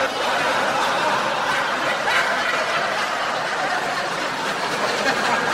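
A crowd laughing at a joke's punchline: a steady din of many people laughing together.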